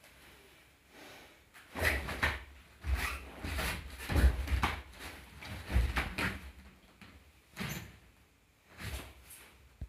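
Wooden bo staff swishing through the air and bare feet stepping and stamping on foam floor mats during a staff kata. The swishes and thuds come in a quick irregular run through the middle, then two more single ones near the end.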